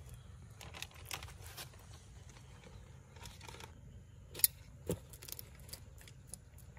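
Young Nile crocodile snapping its jaws shut on a piece of meat: a single sharp clack about four and a half seconds in, then a fainter knock half a second later, over faint scattered clicks and rustling.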